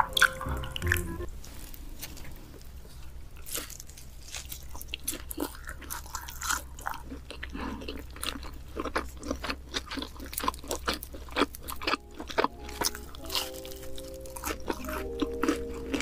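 Biting and chewing pizza, crust crunching in a run of short crisp clicks and wet mouth sounds. Background music plays under it in the first second and comes back near the end.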